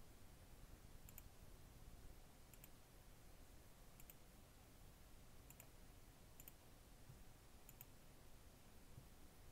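Faint computer mouse clicks over near-silent room tone. They come as quick pairs of clicks about every second or so, about six times.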